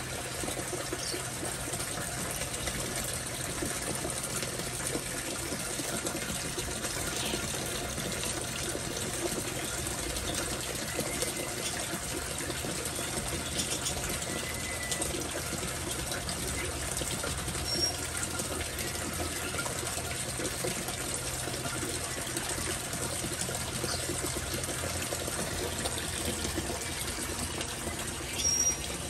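Steady sound of falling, splashing water, with a few brief, faint high chirps from small birds, the clearest about 18 seconds in and near the end.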